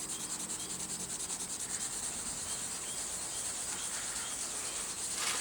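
Fine 2000-grit wet sandpaper on a soft block rubbing back and forth over an automotive base coat, a steady rhythmic scrubbing. The base is being sanded down to remove a fly mark and dirt before clear coat goes on.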